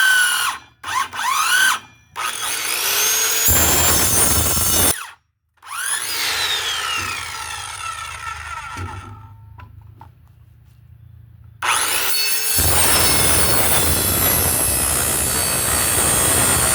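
Handheld power tool cutting into a piece of wood: the motor is triggered in several short bursts, whining up and winding down each time, then runs steadily from about twelve seconds in.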